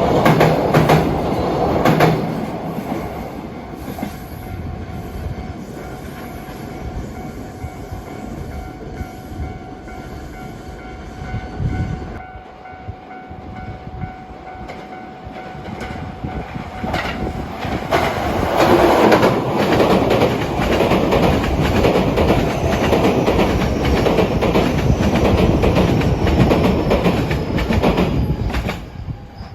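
A train running past on the line, its wheels clattering over the rails. It is loud at first, quieter with a steady tone in the middle, and loud again from about 18 to 28 seconds as a train passes close by.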